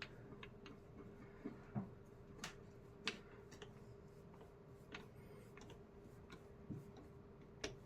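Near silence with a faint steady hum and a scattering of light clicks and taps, about eight spread irregularly.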